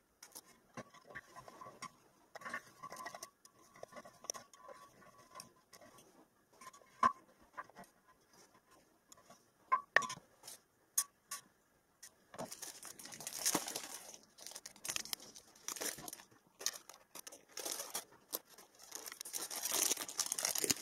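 Small tapping and clicking of a screwdriver and metal parts as an LED chip is unscrewed and lifted out of a floodlight housing. In the second half, crackly crinkling of the clear plastic packet holding the new LED chip as it is handled.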